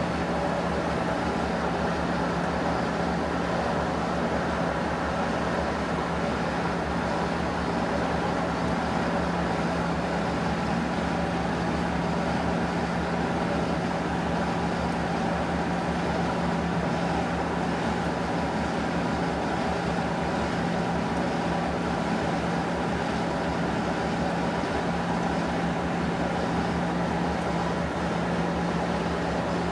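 Electrolux Prosdócimo washing machine running through a rinse cycle with a load of microfibre blankets: a steady motor hum with mechanical churning, unchanging throughout.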